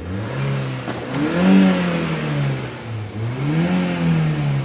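2021 Honda City engine revved twice, the pitch rising and falling each time. It now takes the revs cleanly with a broken ground wire replaced, where before it was misfiring and would not rev.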